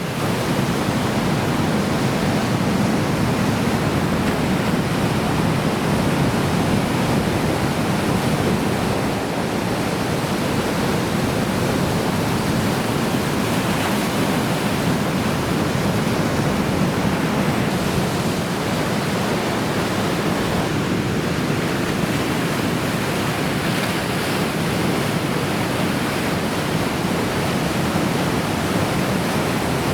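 Steady, unbroken noise of heavy ocean surf from a typhoon swell, mixed with wind.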